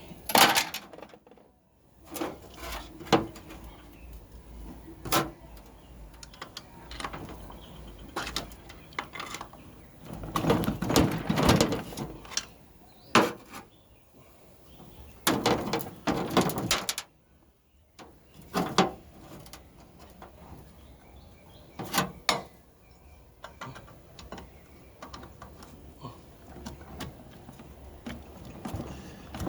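Metal hand tools and parts of a Turbo 400 automatic transmission clanking, knocking and scraping during teardown, with sharp single knocks and a few longer stretches of scraping and wrenching.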